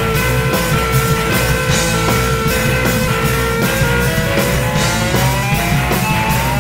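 Rock band music: an electric guitar holds long notes over a steady drum beat, its line sliding upward in pitch near the end.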